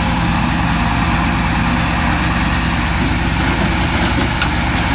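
Scrap-hauling truck's diesel engine running steadily as it powers the hydraulic grapple crane lifting a wrecked car body. A single short clank about four and a half seconds in.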